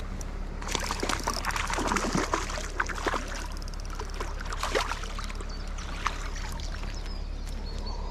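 Water splashing and trickling: a busy run of small splashes and drips over the first few seconds, thinning out afterwards, over a steady low rumble.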